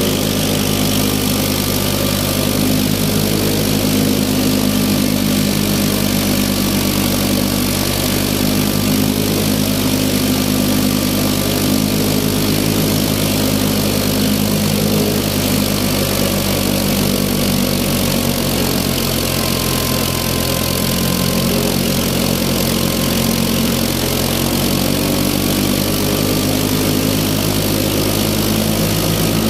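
Massey Ferguson tractor's diesel engine running steadily at working speed, with the chaff cutter it drives running along with it.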